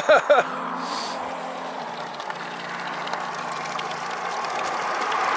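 Road traffic on a main road: a vehicle engine running steadily under the rush of passing cars, with the noise growing louder near the end as another vehicle approaches.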